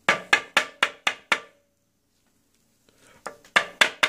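Quick, even knocks of a hard object tapped against a tabletop, about four a second: a run of six, then a second run starting a little after three seconds. Each run ends in a short ring. This is typical of tapping a card holder on the table to seat a trading card inside it.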